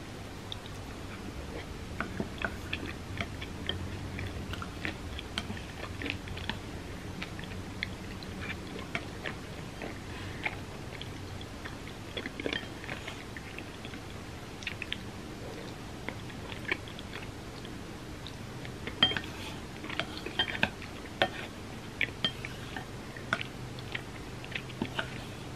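Close-miked chewing, with many small wet mouth clicks and smacks; a denser run of louder clicks comes about three quarters of the way through.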